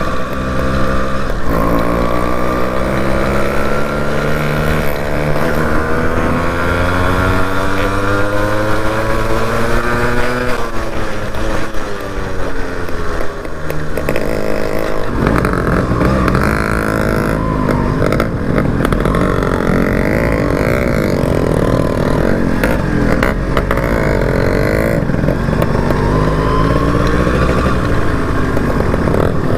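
Yamaha RX two-stroke motorcycle engine running under way: its pitch climbs steadily for about ten seconds as the bike accelerates, drops over the next few seconds, then carries on with a wavering pitch.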